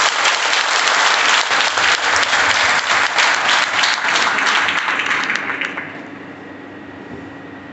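Audience applauding, a dense clapping that dies away about six seconds in.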